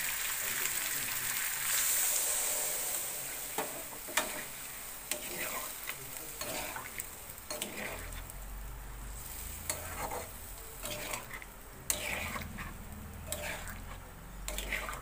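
Water added to hot spiced oil and potatoes in an iron kadai sizzles, loudest about two seconds in. The hiss then dies down as a metal spatula stirs the potatoes through the watery gravy, scraping and knocking against the pan at irregular moments.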